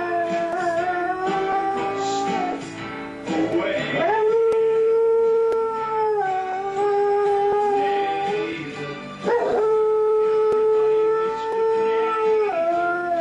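A dog howling along to a TV theme tune: three long howls, the first ending about two seconds in, the next two each rising at the start and then holding a steady pitch for three to four seconds, with the theme music playing underneath.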